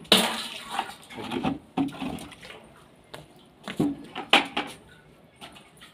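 Water splashing and sloshing in a plastic bucket, in a few irregular bursts, the loudest just after the start and around four seconds in.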